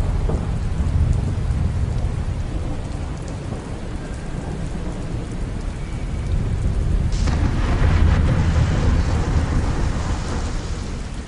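Thunderstorm: low rumbling thunder over steady rain, swelling louder about seven seconds in.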